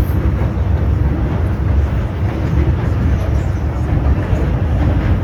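MTR M-train (Metro-Cammell electric multiple unit) running between stations, heard from inside the car: a steady, loud rumble of wheels and running gear.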